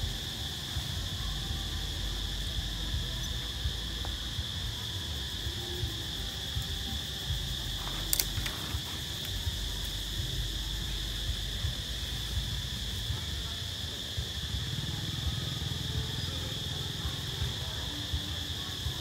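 Steady, high-pitched drone of a forest insect chorus, unbroken throughout, over a low rumble, with one short click about eight seconds in.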